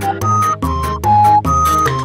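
Background music with a quick steady beat, a bass line and a melody of held high notes.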